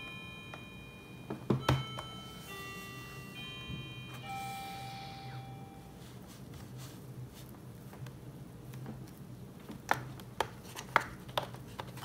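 Plastic pry tool worked along the edge of a laptop's aluminium bottom cover, with a run of sharp clicks in the last couple of seconds as the cover's retaining clips pop loose. Two louder knocks come about a second and a half in, and a faint tune of held notes plays during the first half.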